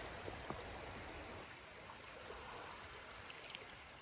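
Faint splashing and trickling of shallow water as a gloved hand reaches into it among beach cobbles, with a couple of faint clicks near the start.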